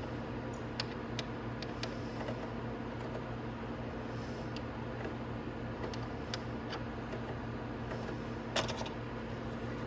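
Steady low workshop hum with scattered light clicks and taps from motorcycle fairing fasteners and plastic panels being worked by hand, and a slightly louder clack near the end.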